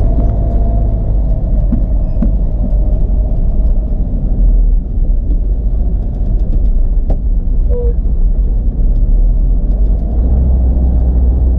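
Steady low rumble of a car's engine and tyres while driving on a winding mountain road, growing a little heavier near the end.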